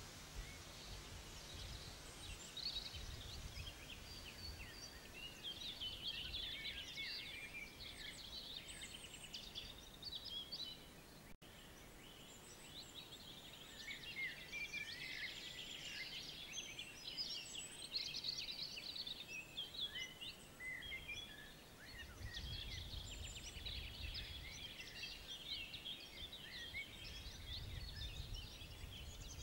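Several songbirds chirping and trilling at once, an outdoor bird chorus, with a faint low rumble now and then.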